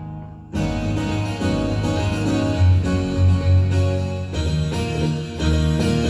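Roland XPS-10 keyboard playing a preset tone demo: a plucked-string, guitar- or harpsichord-like sound over bass notes. The previous phrase fades out at the start, and a new phrase begins about half a second in.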